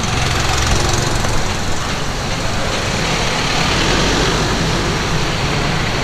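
Vehicle engines running steadily amid passing street traffic, with a motorcycle and a van going by close.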